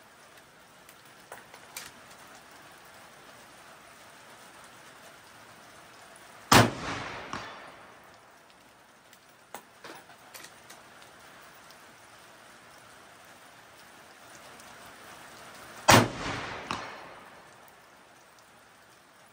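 Two rifle shots from a Seekins Havak PH2 in 6.5 Creedmoor, about nine seconds apart, each followed by a rolling echo, over the steady hiss of rain. A few faint clicks come between the shots.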